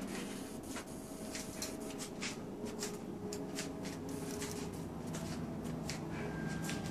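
Handling noise: scattered light clicks and rustling over a low steady hum in a small room.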